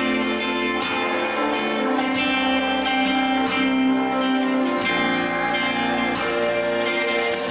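Worship band music: strummed guitar over sustained chords, with a steady beat.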